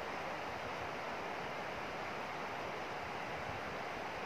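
Steady rushing of a shallow river's flowing water, an even hiss with no breaks.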